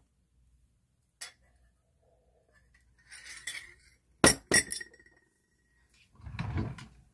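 Hard objects clinking together close to the microphone, glass-like: two sharp clinks just past four seconds in, the second leaving a thin ringing tone for about a second. Around them are lighter clicks and a dull rubbing bump near the end as things are handled right by the camera.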